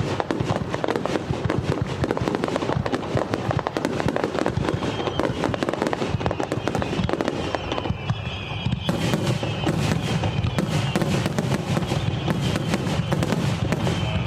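Aerial fireworks going off in a dense, continuous barrage of bangs and crackling, thinning briefly about eight seconds in before picking up again.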